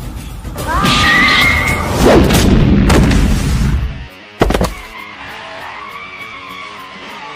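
Background music overlaid with cartoon fight sound effects: heavy hits and crashes through the first half, with a rising tone about a second in. A single sharp impact comes about four and a half seconds in, and then the music goes on more quietly.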